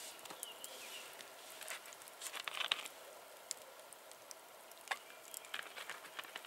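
Wood campfire crackling faintly, with scattered sharp pops and ticks.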